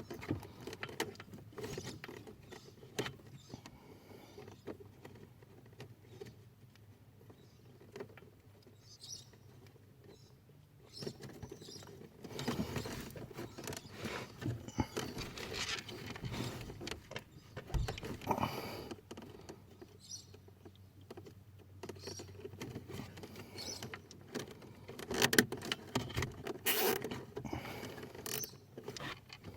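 Hands working wiring and plastic cable ties under a car dashboard: rustling, scattered clicks and the zip of ties being pulled tight, in irregular bursts that are busiest about midway and again near the end.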